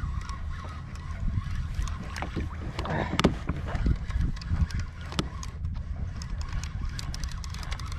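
Small ocean waves lapping and splashing against a kayak's hull close to the microphone, with wind rumbling on the mic and scattered light knocks.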